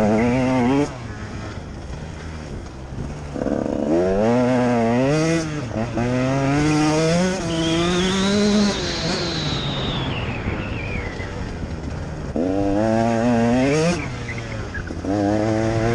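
Enduro motorcycle's engine revving in repeated bursts, heard from on board the bike: the pitch climbs as the throttle opens and falls back when it shuts, about five times, with the longest pull in the middle.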